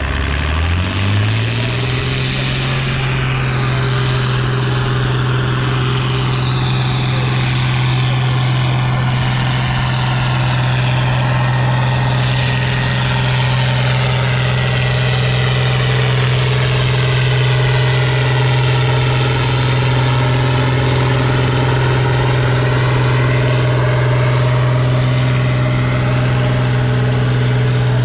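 John Deere 4455 tractor's six-cylinder turbo diesel revving up in the first second or so, then held at steady high revs under load as it pulls the tractor-pull brake sled.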